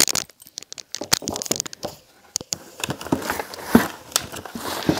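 Rummaging through a pile of handbags: irregular rustling with scattered clicks, knocks and crinkles as purses are pulled out and handled.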